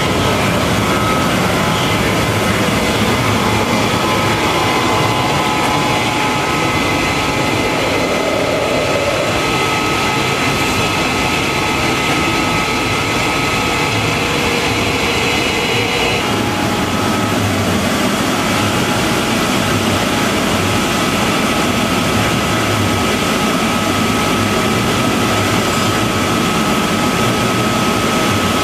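Loud, steady roar of an automatic glass sandblasting machine and its air system running, with a thin steady whine above it. The upper hiss eases a little about 16 seconds in.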